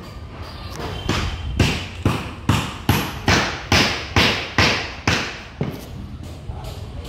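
Hammer blows on wood: about eleven sharp, evenly spaced strikes, a little over two a second, starting about a second in and stopping about two-thirds of the way through, over a low steady hum.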